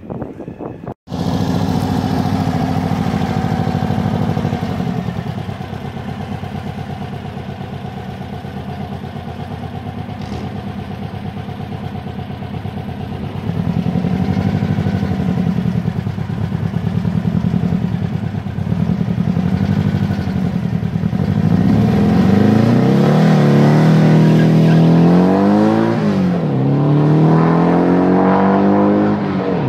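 Turbocharged engine of a 1953 Volkswagen Barndoor bus idling, then revved up and down several times, then run hard as the bus launches and accelerates away. Near the end the pitch drops sharply and climbs again, a gear change.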